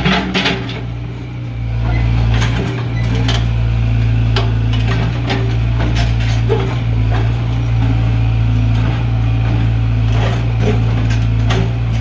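Backhoe loader's diesel engine running at a steady low hum, with many scattered clanks and knocks from the bucket and digging arm working in the trench.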